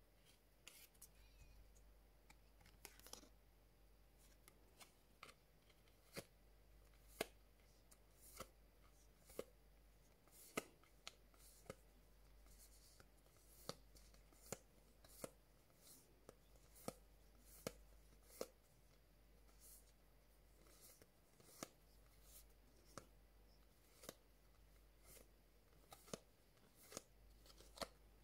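Stack of glossy cardstock photocards being flipped through by hand, each card slid off the front and tucked behind the others with a quiet, sharp click, about one a second at uneven intervals.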